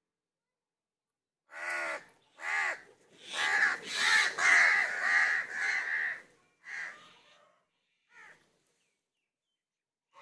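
House crows cawing: a few single harsh caws, then a dense run of overlapping caws for about three seconds, tailing off to a couple of single caws.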